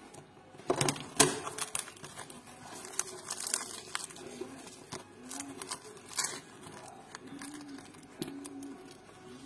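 Crisp, flaky baked burek pastry being torn and broken apart by hand, crackling and crunching in irregular bursts, loudest about a second in and again around six seconds.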